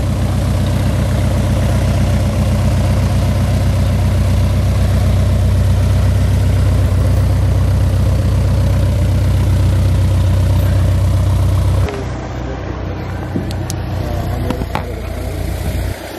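Single-engine propeller airplane's piston engine running steadily at low taxi power as the plane taxis past. About twelve seconds in it cuts off suddenly to a quieter steady hum with a few faint clicks.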